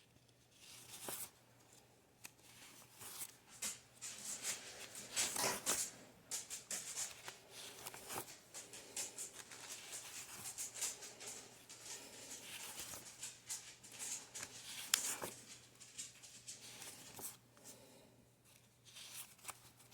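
Stack of one-dollar bills being flipped through by hand, the paper notes rustling and flicking in quick irregular strokes, busiest through the middle and thinning out near the end.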